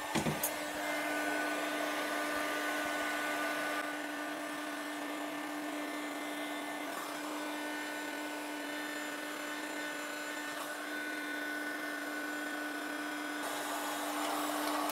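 Electric heat gun running steadily with a fan hum and the hiss of hot air, shrinking heat-shrink tubing over a high-voltage cable. It is switched off right at the end, the fan starting to wind down.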